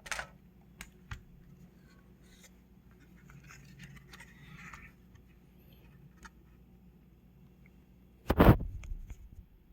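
Hand-work noises from taking apart a solar charge controller: a few light clicks and faint scraping, then a single loud clunk about eight seconds in.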